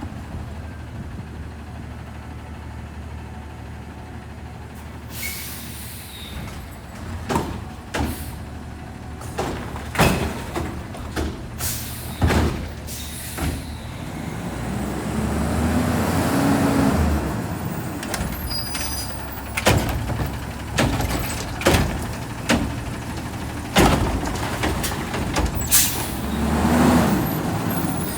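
Autocar ACX Xpeditor garbage truck with a McNeilus front-loader body at work: its engine idles, then runs up louder for a while about halfway through. Repeated sharp metal bangs and clanks sound throughout, with bursts of air-brake hissing about five seconds in and again near the end.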